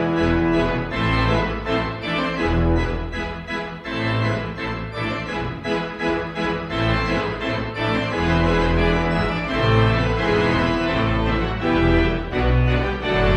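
Instrumental music with many sustained notes over a moving bass line.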